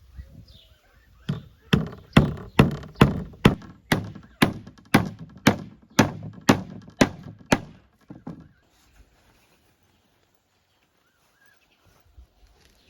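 Steady chopping: about fourteen sharp thunking strokes, roughly two a second, that stop about eight seconds in.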